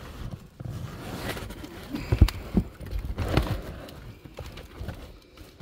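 Hands rummaging through a cardboard box full of shoes: rustling and shuffling, with shoes knocking together a few times, the sharpest knock a little past two seconds in.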